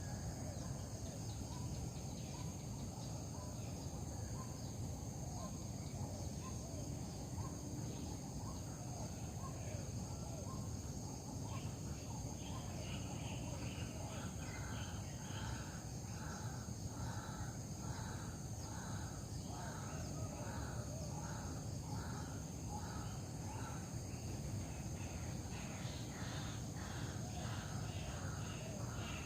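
Steady outdoor insect chorus with a constant high buzz. From about halfway, an animal call repeats regularly, roughly one and a half short calls a second, to the end.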